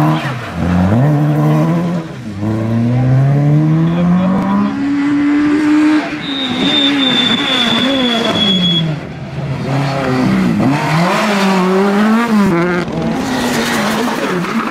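Rally car engines at full throttle, accelerating hard up through the gears, the pitch climbing and dropping back at each shift as cars pass in turn. A high, thin steady squeal runs for a couple of seconds in the middle.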